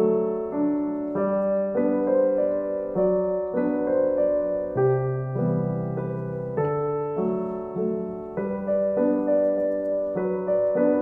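Background piano music: gentle notes and chords, each struck and left to fade, with a new one about every half second.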